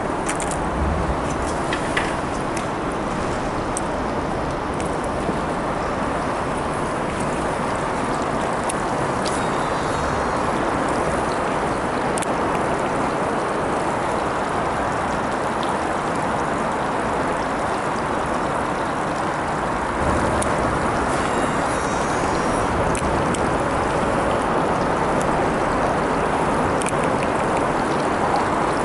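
Steady rushing noise of water and air around a boat under way, with a few sharp clicks of lures being sorted in a plastic tackle box near the start. The rush gets a little louder about twenty seconds in.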